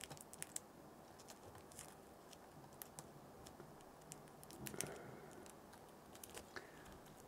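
Faint, scattered small clicks and taps of fingers working a laptop keyboard ribbon cable into its plastic connector latch.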